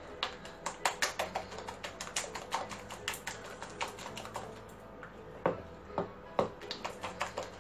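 A hand beating thick chickpea-flour (besan) batter in a bowl, making quick, irregular slaps and clicks, several a second.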